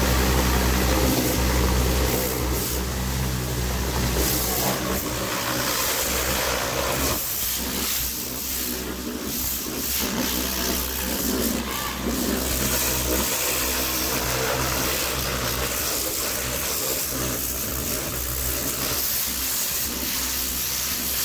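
Electric high-pressure plunger-pump car washer running, its motor and pump humming steadily under the hiss of the water jet. The hum weakens about a third of the way through while the spray hiss carries on.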